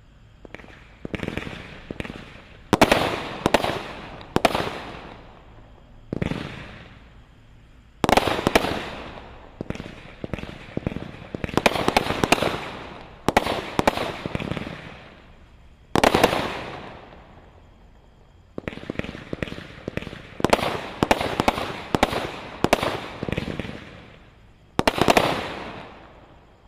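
A 24-shot, 200 g consumer firework cake (Brothers 'Red White and Blue Salute') firing its shots one after another. Each shot is a sharp report whose sound fades over a second or two; the shots come every second or two, with a quicker run of several shots near the end.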